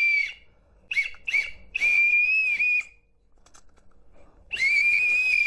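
Two small plastic toy whistles from a pack of whistle candy blown together, giving a shrill steady tone. A blast that stops just after the start, two short toots, a longer blast about two seconds in, a pause, then another long blast starting near the end.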